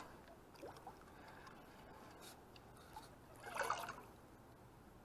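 Faint water lapping against a small boat's hull, with a few light knocks and one brief louder noise about three and a half seconds in.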